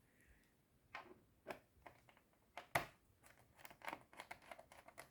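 Faint clicks and taps of a small screwdriver and plastic laptop parts being handled while a screw is driven back in, with one sharper click a little under three seconds in and a run of quick light ticks towards the end.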